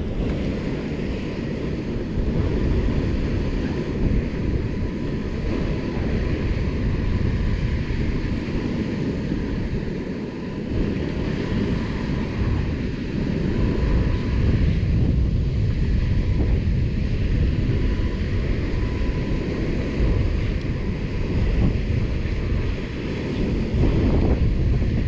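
Wind buffeting the microphone in a fluctuating low rumble, with the rush of open water behind it.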